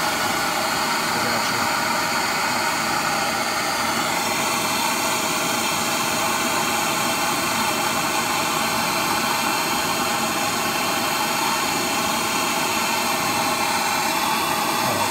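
Handheld gas torch burning with a steady hissing rush of flame, heating the driveshaft to free it where it is stuck. The hiss shifts slightly in tone about four seconds in.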